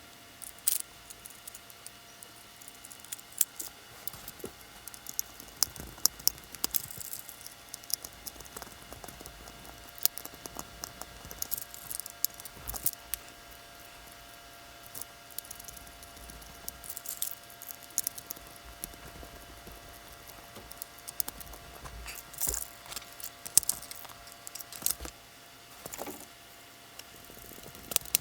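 Scattered clicks, taps and rustling of hands and small tools working on an RV wall outlet and its plastic electrical box, over a faint steady hum.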